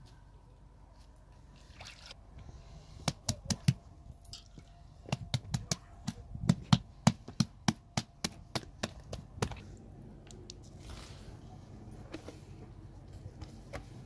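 Hands slapping a round of bread dough to stretch it flat: a run of sharp slaps, first in short groups, then a steady run of about three a second, stopping about nine and a half seconds in.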